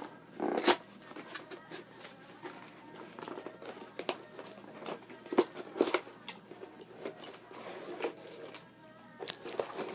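A mailed package being opened by hand: irregular rustling, crinkling and tearing of paper and packaging, with scattered sharp crackles and the loudest tear about a second in.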